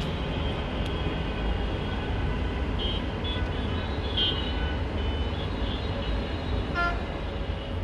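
Steady outdoor background rumble, an even low noise with faint high tones coming and going; a brief pitched tone sounds about seven seconds in.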